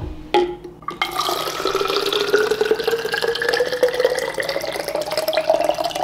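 Water running into a container, the pitch of the filling rising steadily as it fills up. A couple of sharp clicks come just before the water starts.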